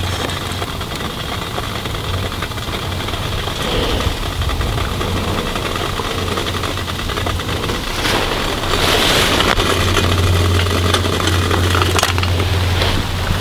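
Jetting alcohol stove burning steadily with a low, even rumble. A few sharp clicks and rustles of handling come in the second half.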